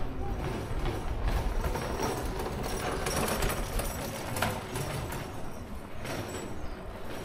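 Town street ambience: a steady, even mix of background noise with a few faint knocks or clicks.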